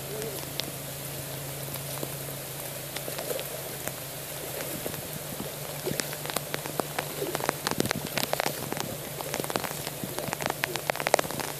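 Footsteps squelching and splashing through wet, liquid mud, with a string of sharp wet clicks from about halfway through over a steady hiss.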